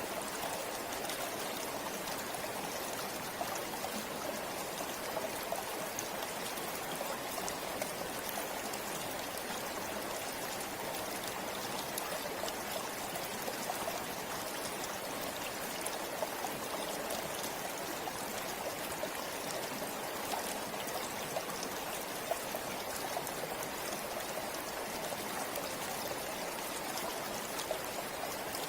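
River water flowing over stones in a steady rush, with small brief splashes scattered through it.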